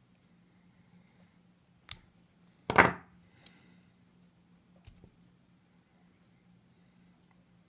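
A few sharp metal clicks and one louder clack, about three seconds in, of a thin metal rod and a hand tool being worked against a drilled shelf-bracket tab, with the rod stuck on a burr in the hole.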